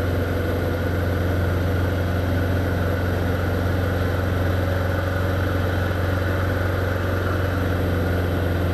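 Light aircraft's engine and propeller droning steadily in level cruise, heard from inside the cockpit, with a deep, even hum and no change in power.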